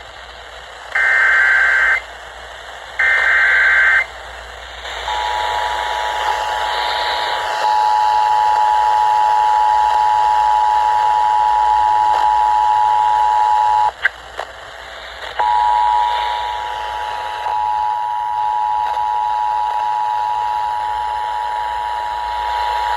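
Emergency Alert System tones played over FM radio with hiss underneath. First come two one-second SAME header data bursts, a harsh digital warble, a second apart. Then the two-tone attention signal, a steady two-note tone, runs about nine seconds, breaks off with a click and sounds again for about eight seconds.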